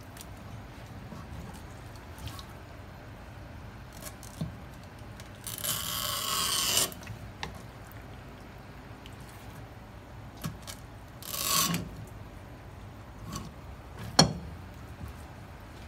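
Kitchen knife scraping across a cutting board and a conger eel fillet: a long rasping scrape about five seconds in and a shorter one near eleven seconds, then a single sharp knock.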